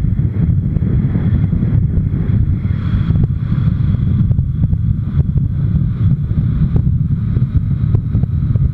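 Wind buffeting a motorcycle-mounted camera's microphone while riding at road speed, a steady loud rumble with the motorcycle's running noise underneath.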